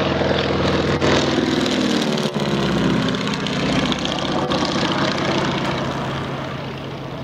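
Stinson Reliant's radial engine and propeller as the plane flies low past: a loud engine drone whose pitch drops as it goes by, then fades slightly near the end.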